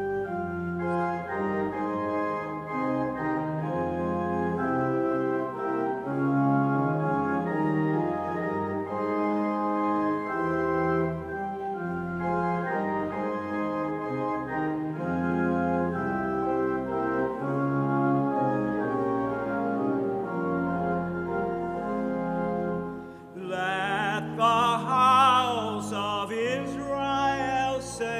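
Church organ playing slow, held chords between the psalm's sung refrain and verse. About 23 seconds in, a singer comes in over the organ with a strong vibrato.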